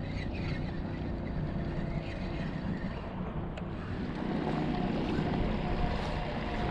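Steady wind noise on the microphone with water washing along the hull of a pedal-drive kayak underway. It grows a little louder about halfway through, when a faint steady hum joins.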